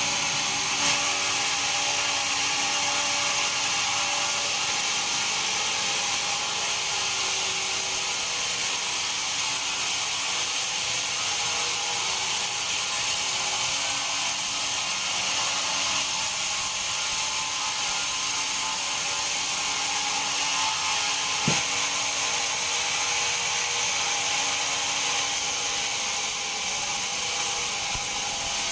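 Band sawmill running steadily: a dense high-pitched noise with several steady tones beneath it, and a single sharp knock about twenty-one seconds in.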